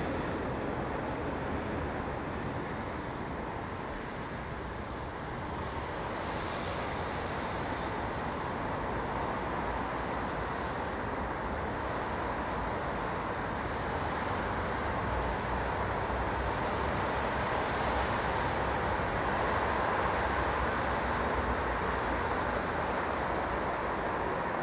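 Distant Boeing 777-200ER jet airliner on final approach and landing, a steady rushing jet noise that grows a little louder in the second half.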